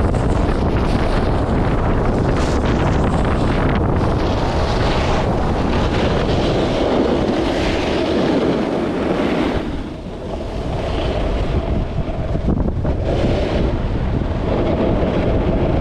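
Wind buffeting an action camera's microphone at speed on a ski run, mixed with the hiss and scrape of edges sliding over packed snow. The rush eases briefly about ten seconds in, then picks up again.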